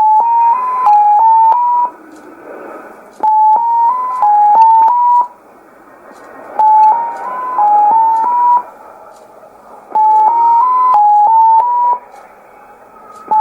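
Unidentified shortwave signal on 9485 kHz, received in upper sideband on a Sony ICF-2001D: a sequence of six short beeping tones stepping up and down in pitch, repeated four times about every three and a third seconds, with band static between the repeats.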